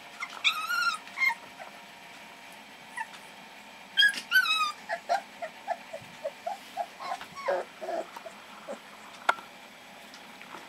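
American Staffordshire Terrier puppies, about three and a half weeks old, whining and yelping: two high-pitched whines near the start and about four seconds in, then a run of short, lower squeaks and grunts.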